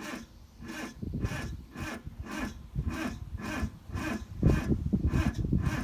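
Car engine cranking slowly on the starter with the accelerator floored, a rhythmic rasping churn at about two strokes a second that does not catch, growing louder about four seconds in. Slow cranking like this is the sign of a weak battery, which the owner takes to be dying.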